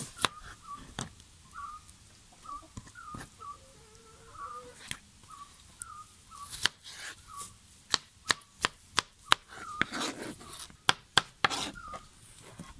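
Kitchen knife cutting watermelon into cubes on a plastic cutting board: sharp, irregular taps of the blade hitting the board, coming faster in the last few seconds. There is a longer scraping rub about ten seconds in.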